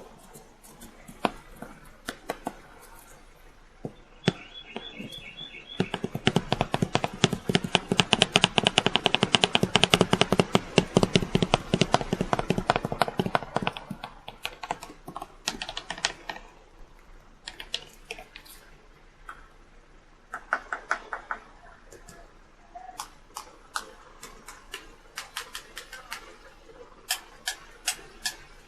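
A spooky sound effect made of sharp clicks and taps. They come scattered at first, build into a fast, dense rattle for several seconds in the middle, then thin out again into scattered clicks, with a few brief squeaks among them.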